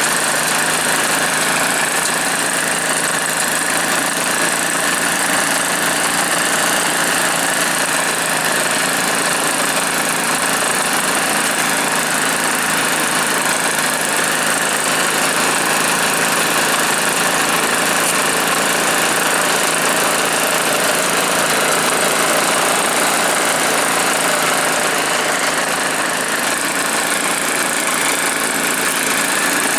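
Two-stroke Druzhba chainsaw engine powering a homemade snowblower, running steadily and loudly with no change in speed.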